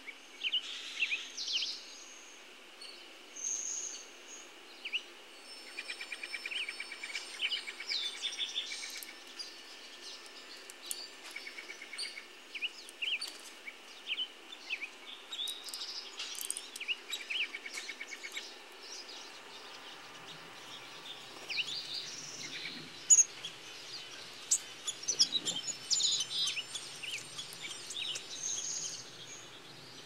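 Wild songbirds calling: many short chirps and high whistled notes scattered throughout, with a quick trill about a quarter of the way in and one sharp tick, the loudest sound, about two-thirds of the way in, over a faint steady hiss.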